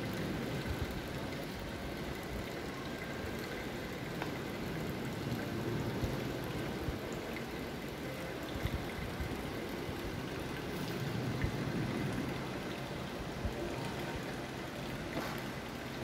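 Steady running and trickling water from an indoor koi pond's fountain, with a few faint knocks.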